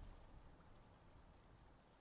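Very faint lake ambience of wind and gently lapping water, with a low wind rumble dying away over the two seconds.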